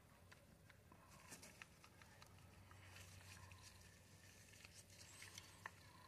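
Near silence: faint, scattered small clicks and taps as a spinning fishing reel's body and rotor are handled and turned over, over a faint steady low hum.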